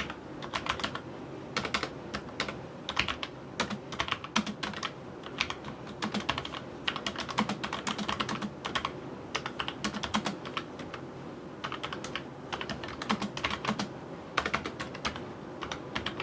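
Typing on a Logitech MX Mechanical Mini mechanical keyboard: quick runs of key clicks in irregular clusters with short pauses, smooth and not very noisy.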